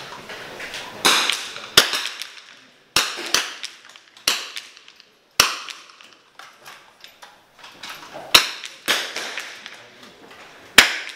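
.22 rimfire benchrest target rifles firing along the line: about ten sharp cracks at irregular intervals, each with a short echo.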